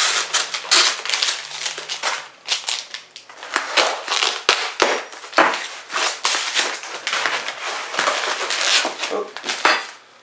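White foam packing blocks and a plastic sheet being pulled and handled out of a cardboard box, giving a continuous run of short scrapes, rubs and crinkles.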